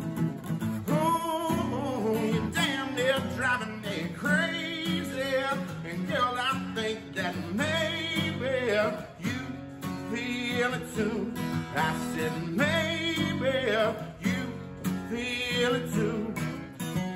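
Acoustic country song played on acoustic guitar, with a man's voice singing a long, wavering melody line without clear words, as the song draws to its close.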